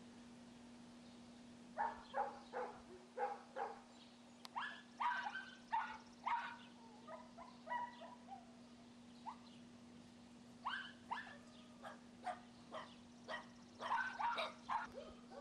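Six-week-old Labrador retriever puppies yipping and barking in play: a quick string of short yaps that starts about two seconds in and keeps going.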